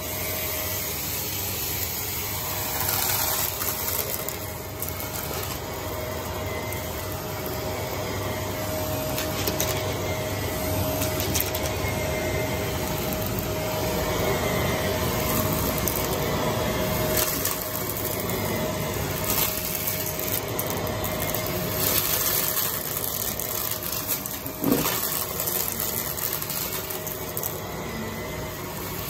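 Vacuum cleaner running steadily with a faint whine, sucking up a thick, clunky mix of debris that clicks and rattles through it now and then, with one sharper knock about three-quarters of the way through.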